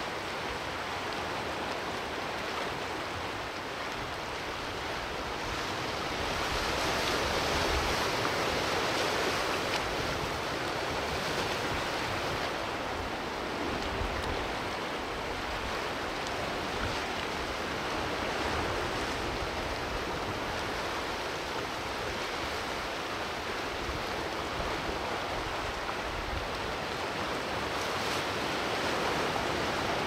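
Sea waves washing in among the rocks of a rocky shore: a continuous rush of surf that swells louder several seconds in, then eases.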